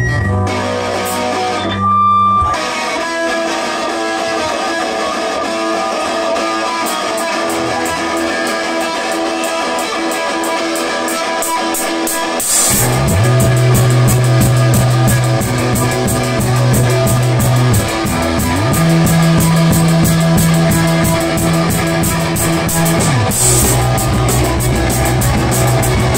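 Live rock band: electric guitar playing with drum ticks building up beneath it, then about halfway the full band comes in hard with a crash cymbal, a loud bass guitar line and drums. The bass slides between notes a few times, with another crash near the end.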